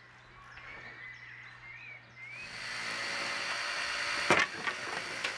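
Faint outdoor background with a few high chirps, then a louder steady background over which two sharp knocks sound about a second apart near the end, as a roofer fastens wooden roof shingles.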